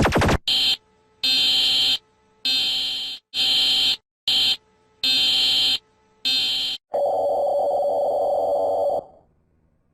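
Emergency alert alarm: seven high-pitched electronic beeps of uneven length, some short and some long, followed by a lower steady tone held for about two seconds that then cuts off.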